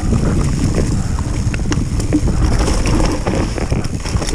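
Mountain bike rolling fast down a dirt trail strewn with leaves: tyres rumbling over the ground, with scattered sharp clicks and knocks as the bike rattles over bumps. Wind buffets the bike-mounted camera's microphone.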